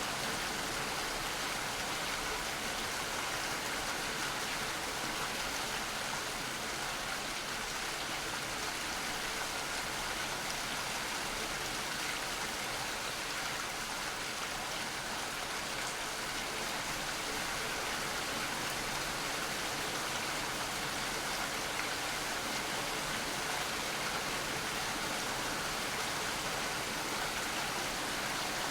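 Steady, even rain with no drops or splashes standing out and no change in intensity.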